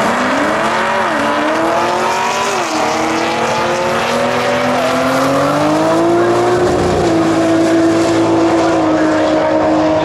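Drag-race launch: an engine accelerating hard from the start line, its pitch climbing and dropping sharply at two gear changes in the first three seconds, then climbing steadily before levelling off as the vehicles run down the track.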